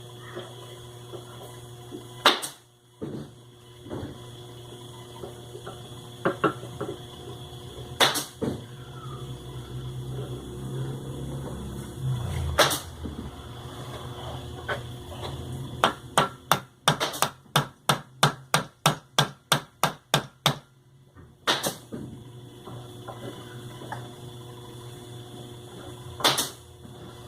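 Hand work reassembling a sewing machine motor after a bearing replacement: single sharp metal knocks every few seconds, and a run of quick taps, about four a second, for some four seconds past the middle, over a steady low hum.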